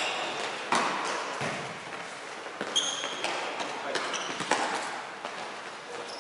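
Indoor football game in a sports hall: a ball being kicked and bouncing off the floor with scattered thuds, and a few short sneaker squeaks, all echoing in the hall.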